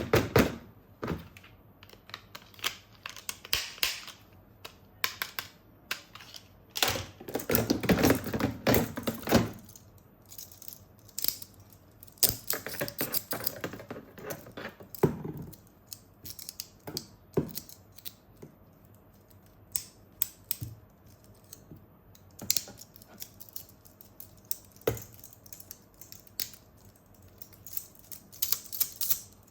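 Plastic toys and packaging being handled: scattered clicks and knocks, with two longer bursts of rustling in the first half.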